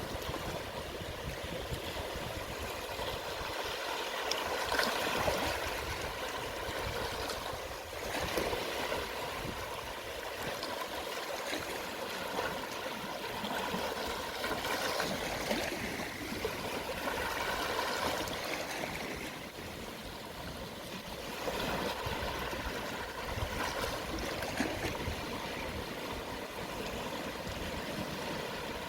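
Calm sea waves washing over a shallow shore at ebb tide: a steady wash of water that swells and eases every few seconds.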